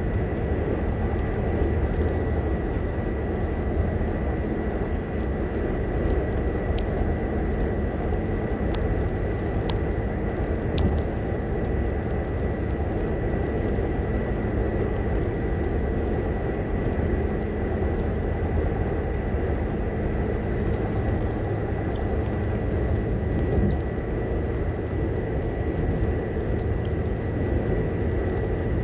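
Steady road and engine noise inside a car's cabin while driving at highway speed, with a faint high whine.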